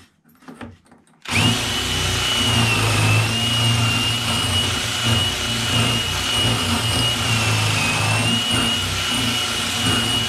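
DeWalt cordless drill spinning a wire cup brush inside a lawnmower carburettor float bowl, scouring out the dirt. It starts about a second in and then runs steadily, with a high motor whine that wavers slightly.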